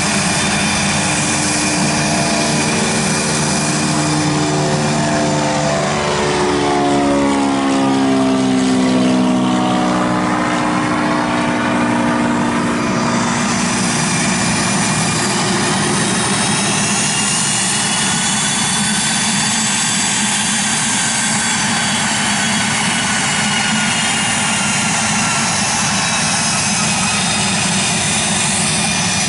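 A single-engine propeller plane drones low overhead, its engine note dropping in pitch as it passes. A little over halfway through, the sound changes to the steady whine of a small twin-engine business jet's turbofans as it taxis.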